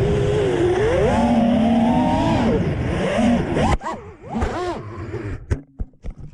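Multirotor drone's motors and propellers whining over a steady hiss, the pitch rising and falling as the motors speed up and slow down. A little past halfway the sound breaks up into short rising-and-falling swells and dips, with a sharp click near the end.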